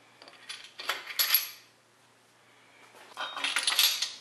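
Steel main bearing caps, bolts sitting in them, clinking and rattling against the block and each other as they are set onto the crankshaft of a Chevy 350 small-block, in two bursts of metal clatter about two seconds apart.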